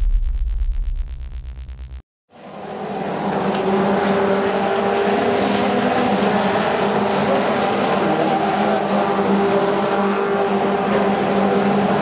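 Electronic intro music fades out over about two seconds and stops. Then a pack of Caterham Seven race cars comes in: several four-cylinder engines run together at a steady level.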